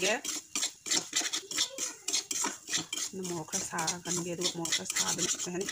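Metal spatula scraping and clinking against a stainless steel kadai as crumbly food is stirred and turned, in quick, irregular strokes.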